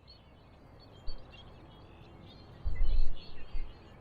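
Many small birds chirping in a steady scatter of short high calls, with low rumbling gusts of wind hitting the microphone, a brief one about a second in and a stronger, longer one about three seconds in.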